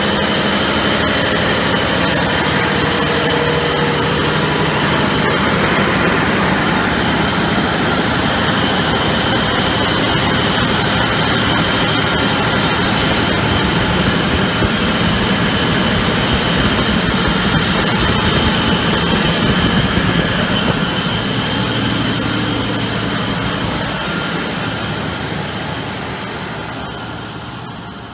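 Jenbacher J612 V12 natural-gas-fired CHP engine running at about 60% load: a loud, dense, steady running noise with steady high-pitched whines over it. The sound fades out over the last few seconds.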